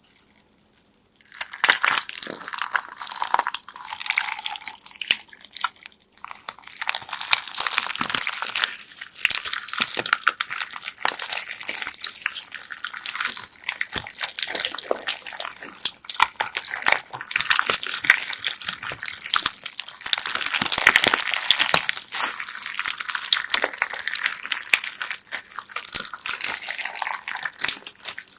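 Hands squeezing, pressing and stretching slime packed with small plastic beads, giving dense, continuous crackling and clicking as the beads shift and pop in the slime. It starts about a second and a half in.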